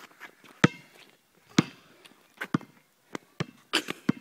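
A basketball bouncing on an asphalt court as it is dribbled: a string of sharp thumps at uneven spacing, about one a second at first and quicker near the end.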